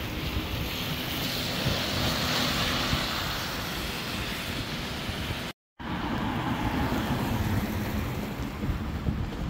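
A bus running past on the street: engine and road noise, with wind on the microphone. The sound drops out for a split second a little after halfway, then traffic noise picks up again.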